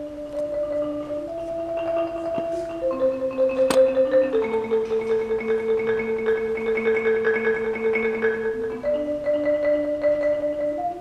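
Marimba played with mallets in sustained rolls: two notes at a time held by rapid repeated strokes, moving to a new pair every one to four seconds. A sharp click sounds about four seconds in.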